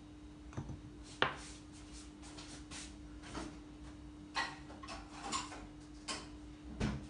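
Scattered light clicks and knocks of kitchen utensils being handled on a countertop, the sharpest about a second in, over a faint steady hum.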